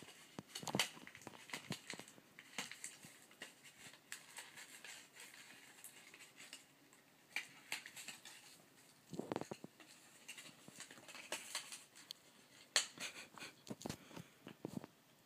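Faint, irregular scratches, rustles and soft taps of a cat's paws and claws on carpet as it rolls and bats at a ball of yarn.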